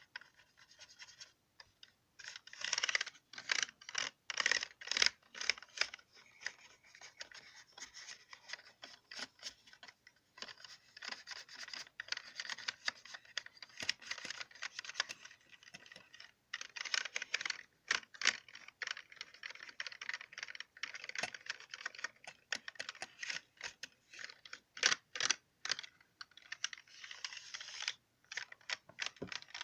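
Computer keyboard keys clicking in fast runs of typing and tapping, mixed with scratching on the keycaps. There are short pauses between the runs.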